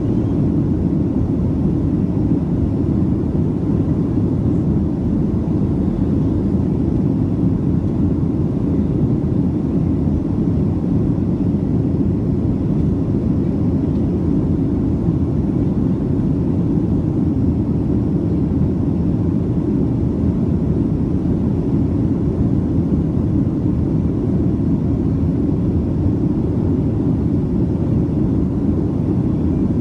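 Boeing 737 airliner in flight, heard inside the passenger cabin: a steady, even roar of engine and airflow noise, heaviest in the low end.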